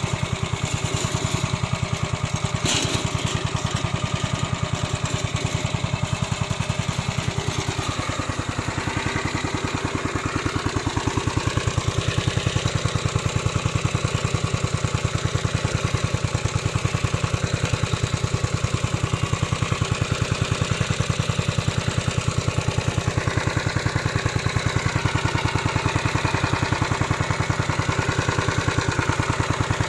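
Small engine of a remote-controlled lawn mower running steadily with a fast, even firing pulse, its pitch shifting a few times. A sharp click sounds about three seconds in.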